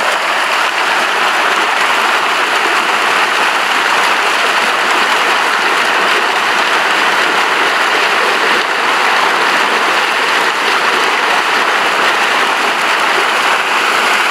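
Dense, continuous splashing of a mass of milkfish thrashing and leaping in the shallow water of a pond as a seine net closes around them, like heavy rain on water.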